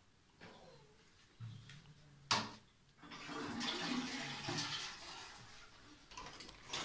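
Toilet flushing: a sharp click of the cistern's flush button about two seconds in, then a couple of seconds of rushing water that tapers off.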